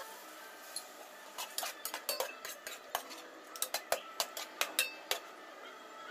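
Metal spoon stirring pork pieces in water in a metal pot, clinking and scraping against the pot in quick, irregular knocks from about a second and a half in until about five seconds in.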